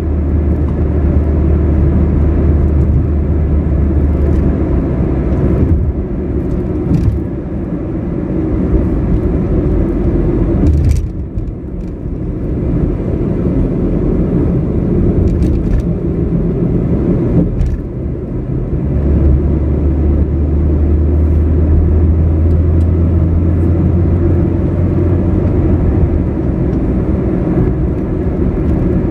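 Car driving: steady low rumble of engine and road noise, easing briefly about eleven seconds in and again around eighteen seconds before settling back.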